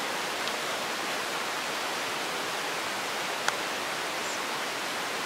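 Steady, even hiss of outdoor background noise, with one sharp click about three and a half seconds in and a fainter one near the start.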